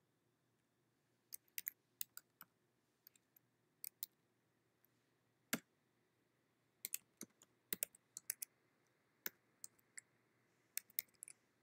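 Computer keyboard being typed on: short, irregular key clicks in quick runs, with one louder keystroke about halfway through.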